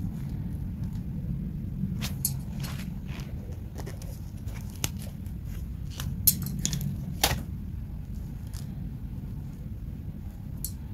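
Scattered light clicks and ticks of small tools and wire being handled, about ten in all with the sharpest a little past the middle, over a steady low background rumble.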